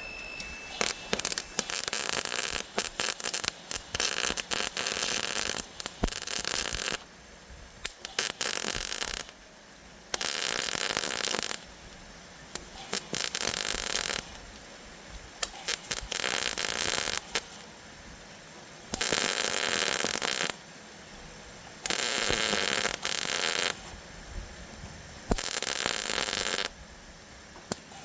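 MIG welder arcing in a series of crackling tack welds and short runs, each a burst of about half a second to two seconds with pauses between, on thin car-body sheet metal. A steady high whistle, which the welder puts down to the new gas tank, fades out about a second in.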